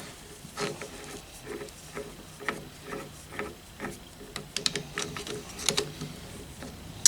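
Hand ratchet clicking in short, uneven strokes as a bolt is turned.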